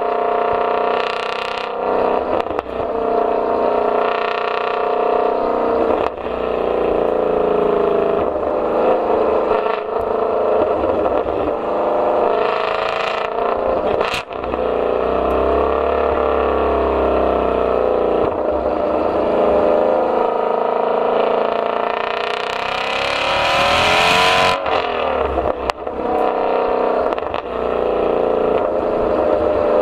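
Ford Mustang Shelby GT350R's flat-plane-crank 5.2-litre V8 running hard under repeated revving and acceleration, its pitch rising and falling. Near the end a long pull climbs in pitch and cuts off suddenly. A few sharp cracks are heard, the exhaust crackles that the car is known for.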